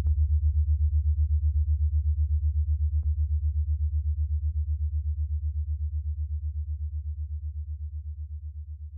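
Low synthesizer drone pulsing quickly and evenly, growing gradually quieter through the second half as background music fades out. A couple of faint clicks sit underneath.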